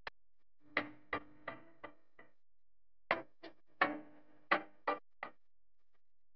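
Background music: a sparse melody of short plucked notes that ring and fade, in two runs of five or six notes with a pause between.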